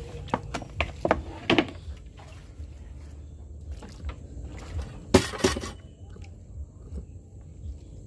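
Scattered light knocks and clinks, with one loud, brief clatter about five seconds in.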